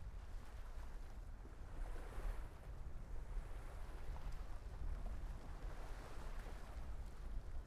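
Wind buffeting a fur-windscreened recorder's microphone with a low rumble, over the wash of small waves against a harbour breakwater that swells and fades, louder about two seconds in and again near the end.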